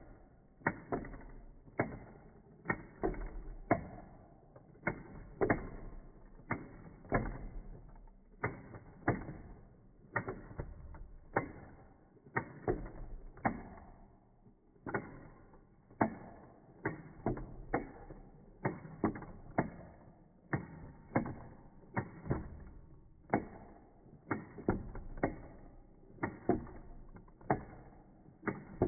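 Clockwork mechanism of a wind-up mechanical squirrel toy, slowed down: a steady series of sharp clicks, roughly one or two a second, each with a short ring, pausing briefly about halfway through.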